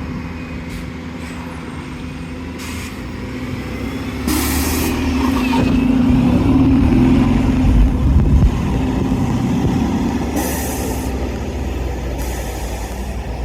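Bus engine running, swelling louder about four seconds in as it pulls away, then easing off. Short bursts of air hiss come three times, about four, ten and twelve seconds in.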